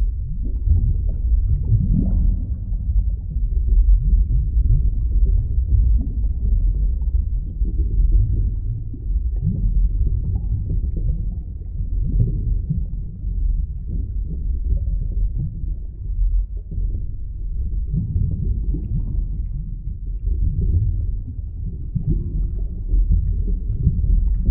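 Underwater ambience: a steady, deep, muffled rumble of moving water that swells and fades, with a few brief rising swoops, one about two seconds in.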